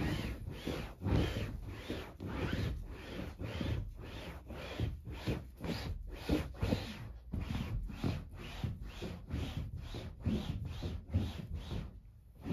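Waffle-weave cloth on a sofa-wiping pad rubbed hard over suede-like sofa upholstery in quick back-and-forth strokes, a steady swishing about two to three strokes a second.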